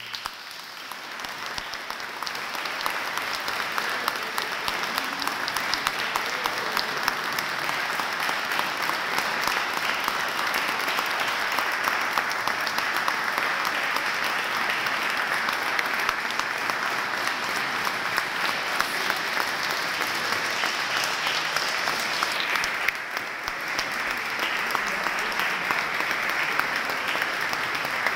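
Audience applauding: dense, steady clapping that eases a little about 23 seconds in.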